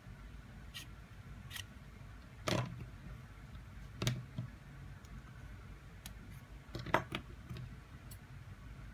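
Scattered sharp clicks and snaps from taking apart a Google Home Mini's fabric cover by hand, with three louder ones about two and a half, four and seven seconds in.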